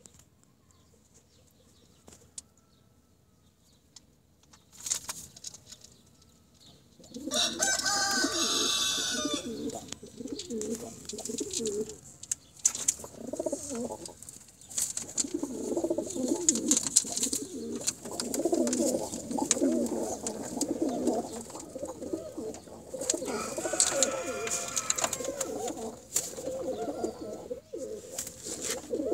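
Domestic pigeons cooing, repeated pulsing coos that start about a quarter of the way in. Higher, thinner calls sound over the cooing twice.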